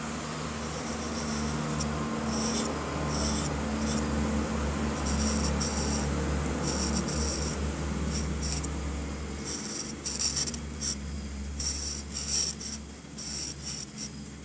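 Black felt-tip marker drawn over paper: a run of short scratching strokes, one or two a second and coming quicker near the end, as stripes are filled in. A steady low hum lies beneath.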